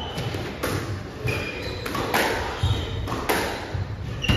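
Squash rally: the ball cracks off rackets and the walls about once a second, with short squeaks of court shoes on the wooden floor between the hits, echoing in the court.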